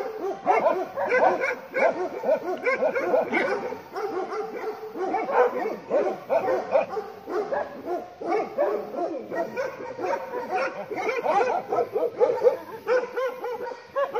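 Several Bhotia dogs (Himalayan sheepdogs) barking continuously, bark after bark overlapping with no pause: alarm barking at a leopard close to the farm.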